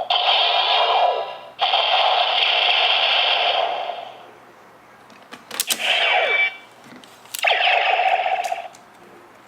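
Electronic sound effects played through a DX Neo Decade Driver toy belt's small speaker, in several loud bursts, with sharp plastic clicks around the middle and again just before the last burst.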